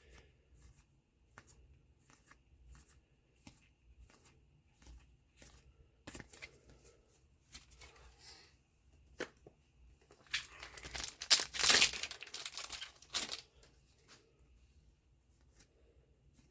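A trading-card booster pack wrapper being torn open: a loud crinkly tearing lasting about three seconds, starting around two-thirds of the way through. Before it come light scattered clicks and flicks of cards being handled.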